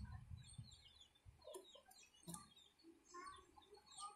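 Faint birds calling: scattered short chirps and a few lower calls. There is a low rumble in the first second.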